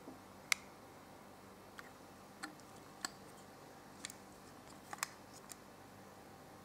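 Scattered small clicks and taps of a plastic Kakure Daishogun toy robot being handled and turned over in the hands, about seven sharp ticks spread over several seconds above faint room hiss.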